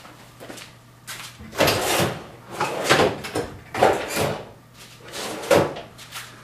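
Several short, rough rubbing strokes on wood, coming at uneven intervals, over a faint steady hum.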